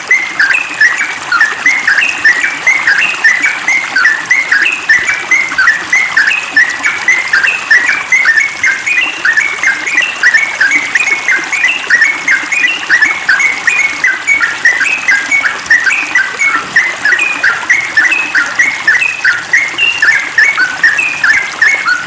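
Yellow-vented bulbul singing a fast, unbroken run of short chattering notes, several a second.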